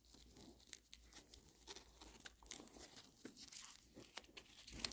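Faint crinkling and scattered small clicks of thin protective plastic film being picked and pulled at on a watch.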